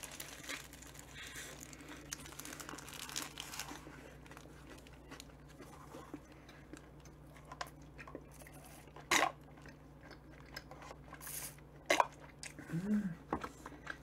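Close-miked chewing of a sandwich with soft crunching and crinkling of its paper wrapper. Two sharp knocks come about 9 and 12 seconds in, and a short hummed voice sound near the end.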